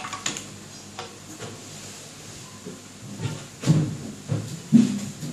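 A few light clicks of a plastic toy car being handled, then several dull knocks and bumps about two-thirds of the way through, the loudest near the end.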